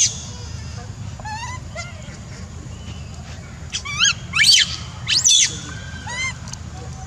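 Baby macaque crying with high, wavering calls: a few softer ones early, then louder ones from about four seconds in. A steady low rumble runs underneath.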